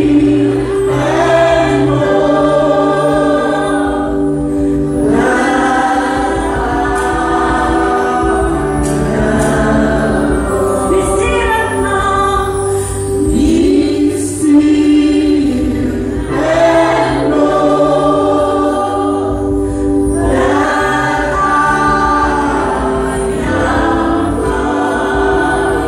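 Slow gospel worship song: a woman sings lead through a microphone and PA, with choir voices and held accompaniment chords underneath.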